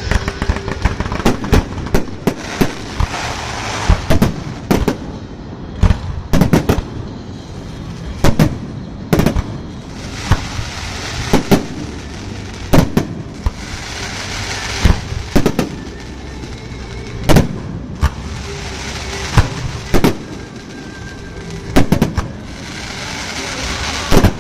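Fireworks display: shells bursting in a string of sharp bangs, about one every one to two seconds, with stretches of crackling hiss between them.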